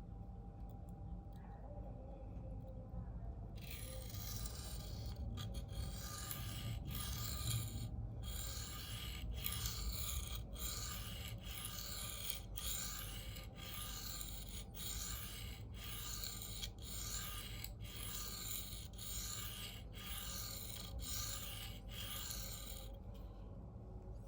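The CPM 4V steel blade of a Spyderco Native 5 being stroked on a coarse diamond sharpening plate, a 325-grit Sharpal, in a run of rhythmic scraping strokes a little over one a second. The strokes begin about four seconds in and stop shortly before the end. This is the reprofiling stage of sharpening, which raises a burr on the edge.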